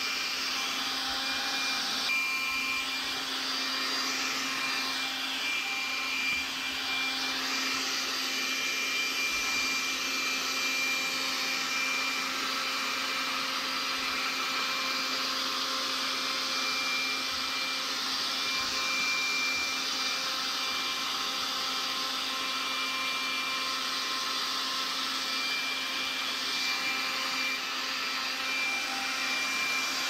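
Stick vacuum cleaner running steadily: a constant motor whine over a hiss of suction, its note drifting slightly as the nozzle is worked over fabric cushions.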